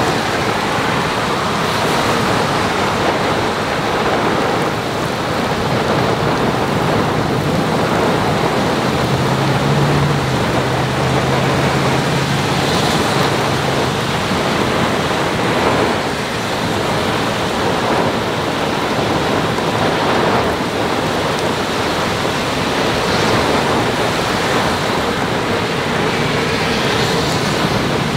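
Steady, loud noise of a storm: wind, rain and rough surf breaking on the shore.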